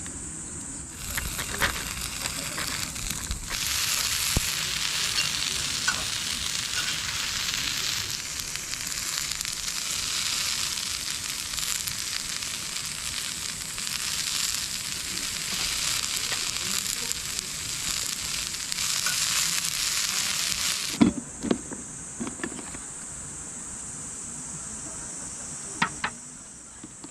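Food sizzling in a hot pan, cooking over a campfire. The sizzle starts about a second in and stops abruptly about 21 seconds in, followed by a few knocks and clinks.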